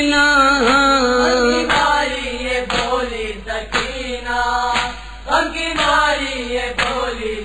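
Urdu noha (Shia lament) chanted unaccompanied by a male voice in a slow, mournful melody, with a sharp beat about once a second.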